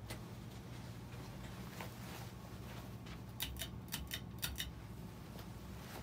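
1989 Dynasty/Jet King ceiling fan running with a steady low motor hum. About halfway through there is a quick run of about six sharp clicks.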